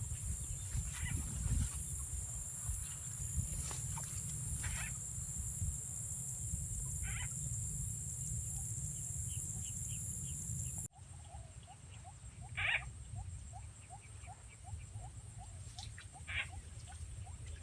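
Night-time insects chirring in a steady high-pitched chorus, with short frog calls now and then. In the second half a rapid ticking call repeats about four times a second, over a low rumble of wind or handling noise on the microphone.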